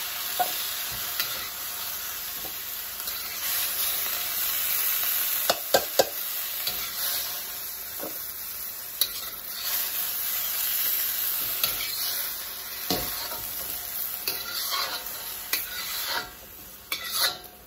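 Broccoli sizzling in a hot wok while a metal spatula scrapes and scoops it out, with scattered clinks of metal on metal. The sizzle dies down near the end as the wok empties.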